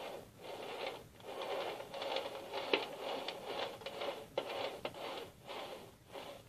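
A knife blade scraping around the inside of a metal cake ring to free the cake: a run of rubbing, scraping strokes with a few sharp clicks of metal on metal.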